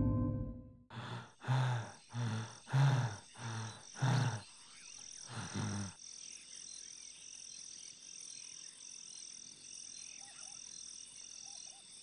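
A cartoon peacock sobbing: about eight short, low, shuddering sobs in quick succession that stop about six seconds in. Jungle insects chirp underneath in a high, even pulse about twice a second, and carry on alone after the sobbing ends.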